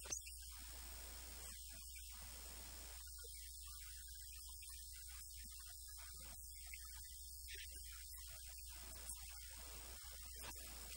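Faint, steady electrical mains hum with nothing else much above it, and a brief click right at the start.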